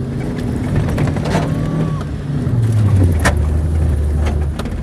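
Chevrolet car engine running hard, heard from inside the cabin while driving on a rough dirt road. The engine note rises about a second in and drops back around halfway, with a few sharp knocks from the bumpy road.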